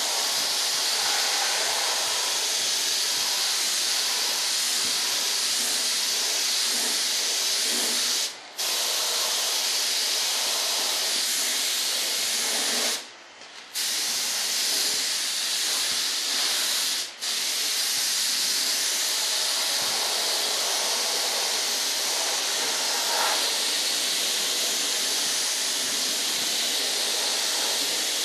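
Paint spray gun hissing steadily while spraying. The trigger is let off three times: briefly twice, and once for under a second around the middle.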